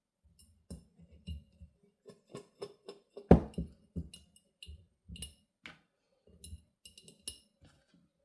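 Cucumber spears being packed into a glass mason jar: irregular knocks and clinks against the glass, with one loud, ringing knock a little over three seconds in.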